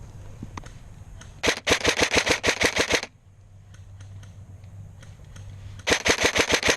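Airsoft gun firing two full-auto bursts of rapid, evenly spaced shots, about eight a second: a longer burst about a second and a half in, and a shorter one near the end.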